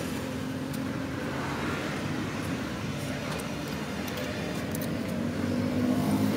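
Steady low hum of a running vehicle engine with traffic noise, growing a little louder near the end, with a few faint clicks.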